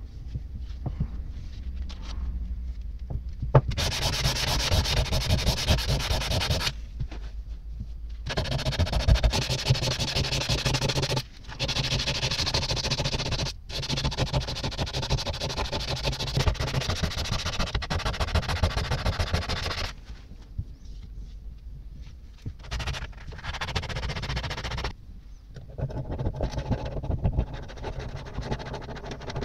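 Steel caliper beam being sanded by hand with sandpaper to take off rust: fast back-and-forth rubbing strokes in several long bouts, with short pauses between them.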